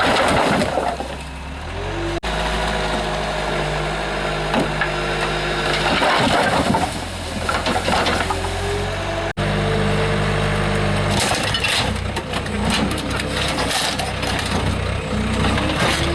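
Chevrolet pickup's 5.3 L LS V8 engine running, its note changing abruptly twice, with scattered knocks and crunching about two-thirds of the way through.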